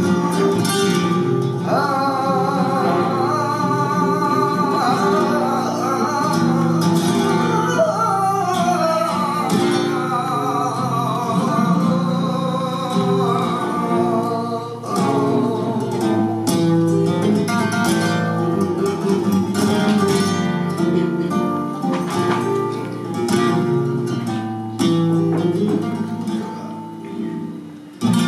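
Flamenco music: acoustic guitar strumming and plucking, with a voice singing over it through the first part.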